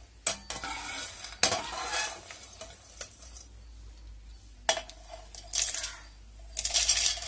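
A steel ladle scrapes and clinks in a pan while scooping dry-roasted peanuts, then the peanuts rattle as they are tipped into a steel mixer jar. There are a few sharp clinks early on and several louder rattling pours in the second half.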